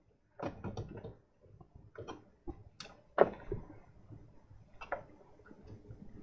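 Scattered small clicks and rattles of hand pliers and wire being handled while a loop is bent into a tinned wire, the sharpest click a little past three seconds in.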